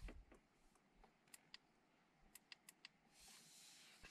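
Near silence: a few faint sharp clicks in the middle, then a faint steady hiss setting in near the end.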